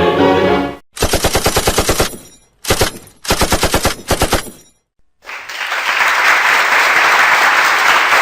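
Machine-gun fire sound effect: several rapid bursts of automatic shots, each about ten shots a second, with short gaps between them. About five seconds in it gives way to a steady, loud rushing noise.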